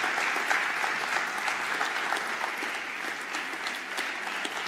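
An audience applauding: many hands clapping densely and steadily, easing off slightly toward the end.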